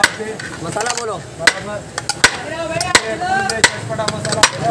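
Metal serving spoon clanking against a large metal biryani pot (deg) as portions are scooped out: sharp, irregular knocks about every half second to a second, with voices murmuring underneath.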